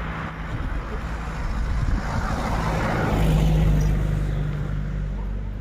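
A motor vehicle's engine running with a low hum, growing louder through the middle and easing off toward the end.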